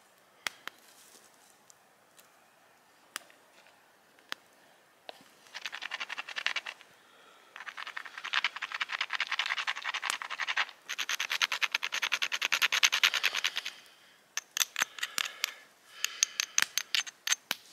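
Knit fingerless-gloved hands rubbed briskly together over a campfire to warm them: bursts of rapid scratchy strokes lasting a few seconds each. A few sharp pops from the fire come before the rubbing starts.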